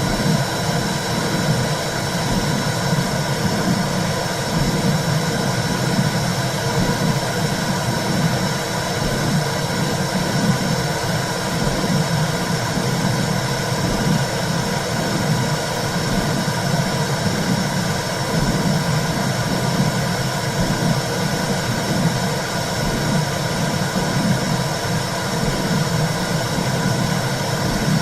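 Steady low whooshing drone of womb sound, sitting mostly in the deep range and wavering slightly, with no break or change.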